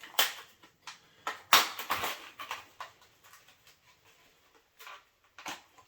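Sharp clicks and knocks of a DDR4 memory stick being pressed into its motherboard slot and the slot latches snapping shut, with handling noise; the loudest cluster comes about a second and a half in.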